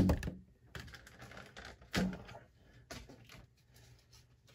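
Cardboard collection box and its clear plastic tray being handled: a sharp click at the start, then lighter clicks, taps and rustles about once a second that die away near the end.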